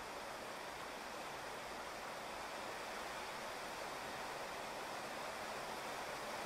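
Steady rain falling on a wet asphalt street and grass, an even hiss.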